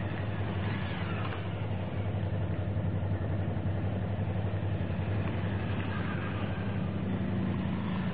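Suzuki V-Strom motorcycles riding past one after another at low speed, their V-twin engines running with a steady low hum.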